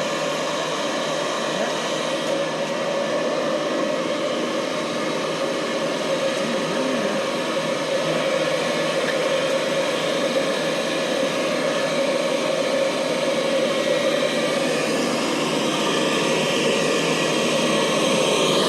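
Blower of a smoke-extracting machine running steadily, a continuous whooshing whir that grows slightly louder near the end.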